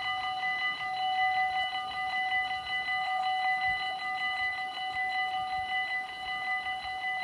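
Dutch railway level-crossing warning bell ringing in a fast, even rhythm of repeated metallic strikes: the signal that the crossing is closing for an approaching train.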